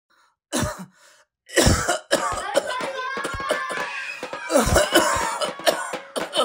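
A person coughing in sudden bursts, the first about half a second in.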